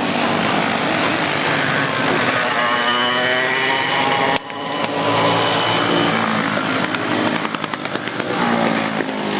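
A pack of small single-cylinder Briggs & Stratton Animal racing kart engines at full race pace, their pitch rising and falling as the karts accelerate and lift. There is a sudden brief dip in level about four and a half seconds in.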